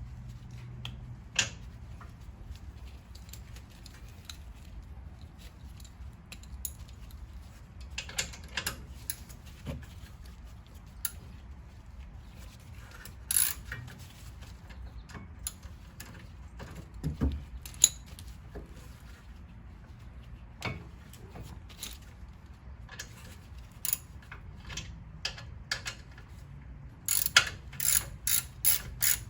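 Scattered metal clinks and knocks of tools and brake parts being handled. Near the end a ratchet wrench starts clicking quickly and evenly, about three clicks a second, as it runs in the Mercedes-Benz W212 E350's rear brake caliper bolt.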